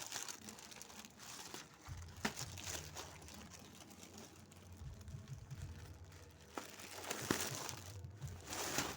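Plastic packaging crinkling and rustling as a laptop bag is handled and unpacked, with scattered sharp clicks; the handling gets louder near the end.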